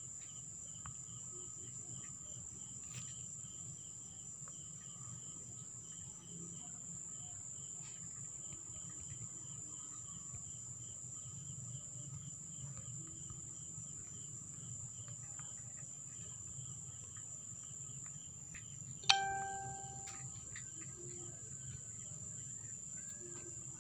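Faint background of insects chirping in a steady pulsing trill over a constant high whine and a low hum. About three quarters of the way through, a single sharp knock with a short ringing tone.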